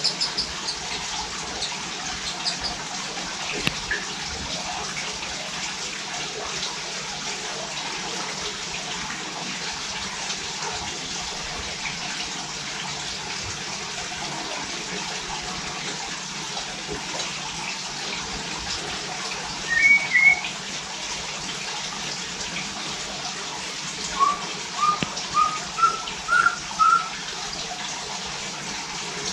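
White-rumped shama (murai batu) calling sparsely over a steady background hiss. A brief phrase comes about two-thirds of the way through, and near the end a run of six short notes climbs step by step in pitch.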